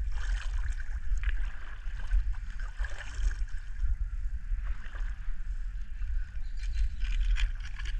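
Fishing reel being cranked to bring in a hooked fish: a steady whirring with scattered light clicks, over a strong low rumble.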